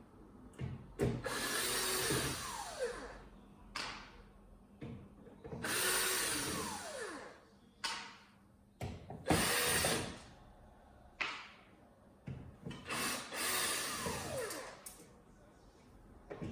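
Power drill backing out screws in four short runs, its motor winding down in pitch each time the trigger is let go, with clicks and knocks of handling in between.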